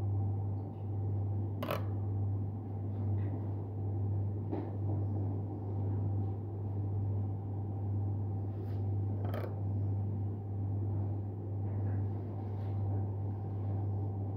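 Steady low machine hum, like a motor or appliance running, with a few faint scattered clicks.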